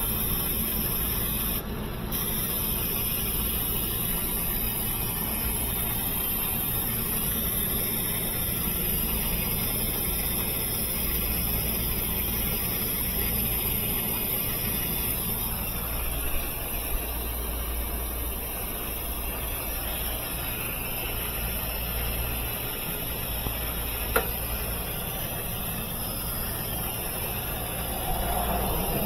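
Washing machine running underneath: a steady low hum from its motor and belt drive, with a sharp click about 24 seconds in.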